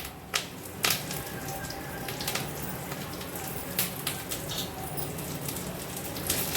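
Curry leaves and whole spices (coriander seed, fennel, cumin, black pepper) frying in a little sesame oil in a pan, with a steady low sizzle and irregular sharp crackles and pops.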